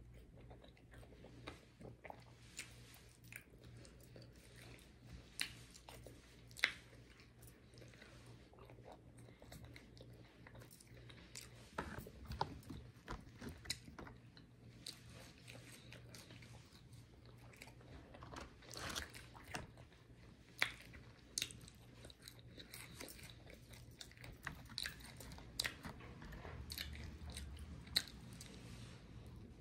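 Eating sounds: biting into and chewing fried chicken wings and french fries, with scattered short crunches and clicks that come thicker a few times.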